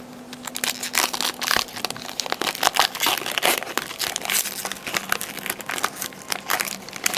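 Trading-card pack wrapper being torn open and crinkled by hand, a dense run of crackling that starts about half a second in and stops just before the end.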